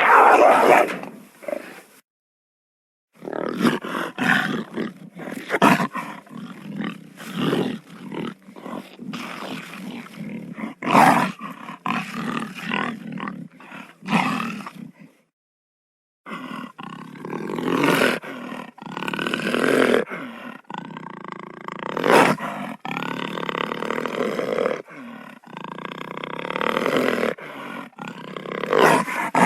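Wild cat calling in a run of short, repeated calls, in separate recordings cut together with brief silent gaps about two seconds in and again about fifteen seconds in.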